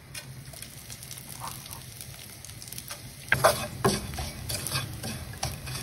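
Breadcrumbs toasting in olive oil in a nonstick frying pan: a faint sizzle, with a wooden spoon stirring and scraping them across the pan. The scraping strokes come louder from about three seconds in.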